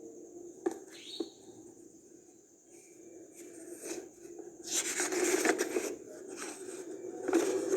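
Packaging handled during an unboxing: two sharp clicks about a second in, then rustling and scraping of the box and wrapping in the second half.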